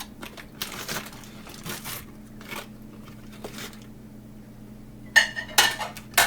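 Paper microwave popcorn bag rustling as it is handled, then three sharp clinks of dishware, each ringing briefly, near the end.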